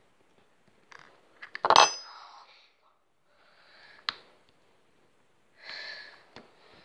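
Metal spoon striking a small plastic tub while crushing sweets: a few light clicks, then one sharp clink about two seconds in that rings briefly, and another lighter clink about four seconds in.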